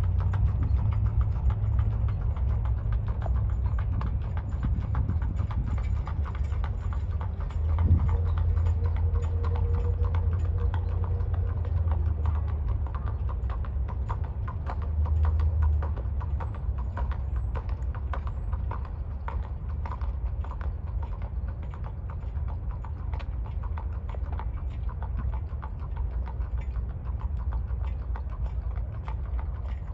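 Hoofbeats of a Tennessee Walking Horse moving at a steady gait: a quick, even run of hoof clicks over a low, steady rumble.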